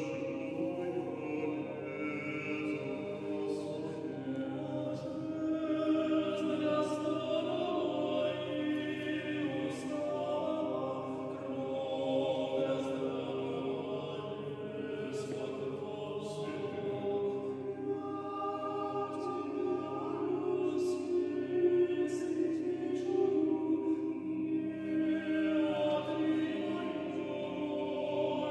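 Choral music: a choir singing slowly in long, held chords.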